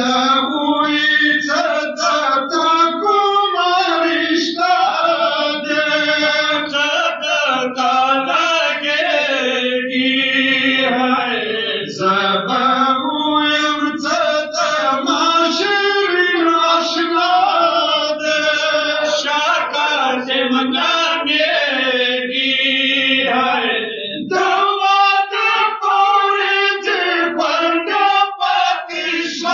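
Men chanting a Pashto noha, a Shia mourning lament, with a lead reciter and supporting voices singing together in long, held phrases. The singing breaks off briefly near the end, then resumes.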